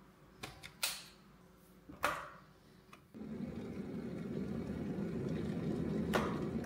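A Vista electric kettle knocking and clicking as it is set on its base, then switched on about three seconds in: its element starts heating the water with a steady low rushing sound, with one sharp click near the end.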